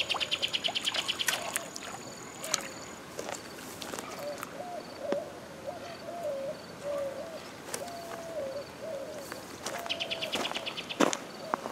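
Fishing reel clicking rapidly as line is wound in, for about a second at the start and again briefly near the end. In between, a bird sings a string of short, low whistled notes.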